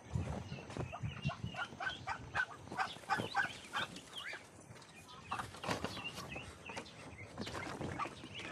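Poultry calling in runs of short, rapid calls, with a lull around the middle before a second run.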